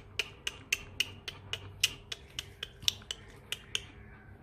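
A quick run of sharp clicks, about four a second, stopping near the end.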